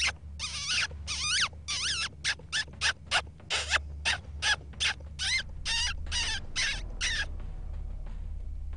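Hunter's mouth squeak used as a predator call, imitating a distressed rodent to lure a coyote in: a rapid run of short, high squeaks, about two a second, each sliding up and down in pitch. The squeaking stops about seven seconds in.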